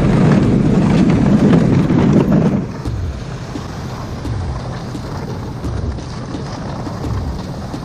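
Wind buffeting the microphone over the rumble and hiss of a sled being towed across snow-covered ice by a motorized snow dog. The rushing is loudest for the first two to three seconds, then drops off.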